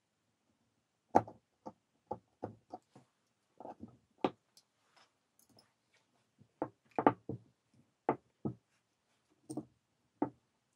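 Irregular small knocks and clicks of hand tools and metal parts being handled: pliers and an alternator's diode block (rectifier) and stator knocked and set down on a cloth-covered worktable. The two loudest knocks come about a second in and about seven seconds in.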